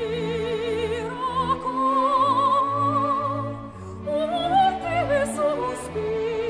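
Background music: operatic singing with strong vibrato over orchestral accompaniment.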